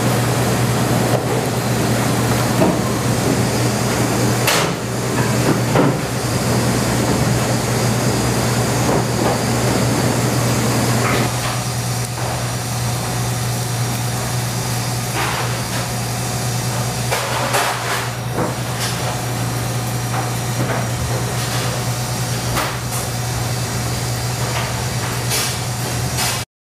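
Steady low hum and hiss of commercial kitchen equipment, with occasional light knocks and clatter from work at the steel prep table.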